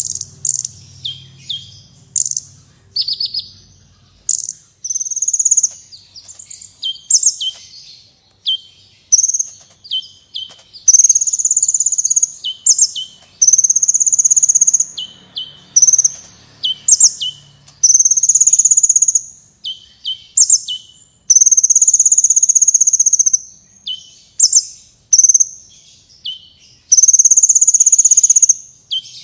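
A sunbird (the 'kolibri wulung' of Indonesian bird-keepers) singing loudly: very high, buzzy trilled notes held for a second or two, alternating with quick falling chirps in rapid runs.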